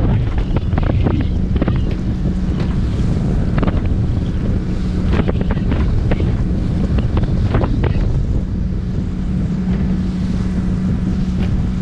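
Small open motorboat under way in choppy sea: a steady engine hum under heavy wind buffeting on the microphone, with the hull knocking and splashing on the waves at irregular moments.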